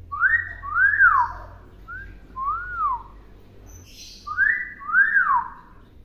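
Hill myna whistling three two-note phrases, each note rising and then falling in pitch; the middle phrase is softer.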